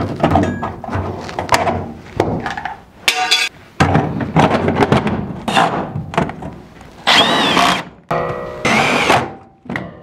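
Sheet-metal knocks, thunks and clatter as a round starting collar is worked into a hole in a furnace's galvanized supply plenum and fastened, with two short, harsher bursts about seven and nine seconds in from a cordless drill.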